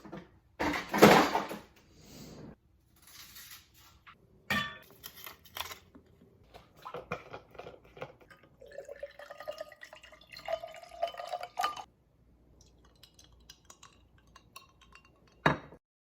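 Kitchen dishes and cutlery clattering and clinking. The loudest part is a noisy burst about a second in, and a rising tone runs for about three seconds past the middle.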